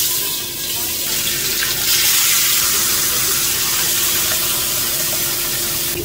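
Pieces of a large gourami fish frying in hot oil in a wok, a loud steady sizzle.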